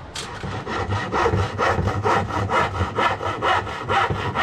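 Rapid back-and-forth rasping strokes, about four a second, keeping an even rhythm.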